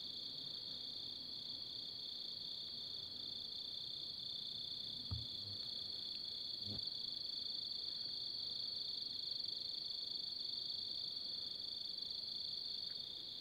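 Steady, high-pitched chorus of night insects, likely crickets, trilling without pause. Two faint soft knocks come about five and seven seconds in.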